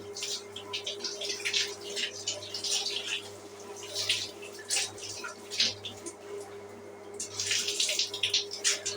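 Shower water splashing in irregular bursts, over a steady low hum.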